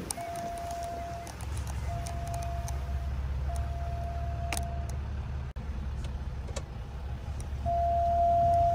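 A car's parking sensors beeping as long grass brushes the front of the car: three held beeps of about a second each at one steady pitch, then a louder continuous tone near the end. Under it is the low rumble of the car moving.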